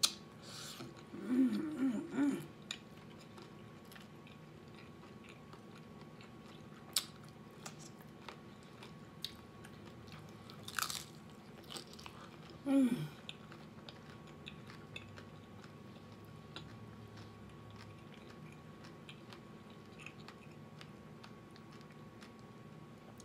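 Close-up chewing and crunching of a hard taco shell, with scattered sharp crunches and wet mouth sounds. There are brief hummed vocal sounds about a second in and again about halfway, the second falling in pitch.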